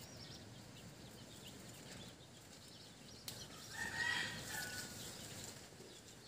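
A chicken calls once, loudest about four seconds in, over faint background noise with a few small bird chirps.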